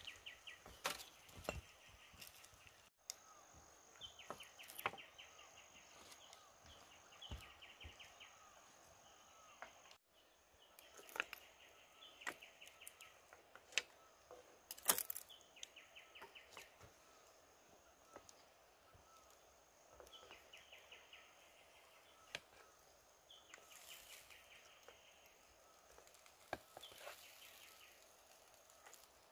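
Quiet forest ambience with a high, rapid trill from wildlife repeating every few seconds. Scattered light clicks and taps come from shells and a utensil being handled on the metal grill, the sharpest about halfway through.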